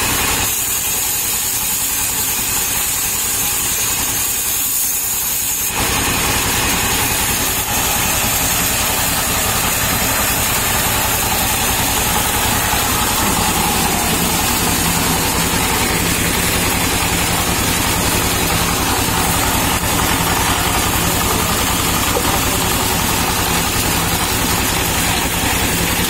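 Stationary diesel engine running steadily, driving a large band saw as it cuts palm-tree wood.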